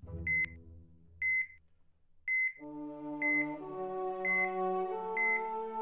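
ECG software's heartbeat beep: a short high beep about once a second, in time with a heart rate of 60 beats a minute. Soft background music chords come in about halfway through.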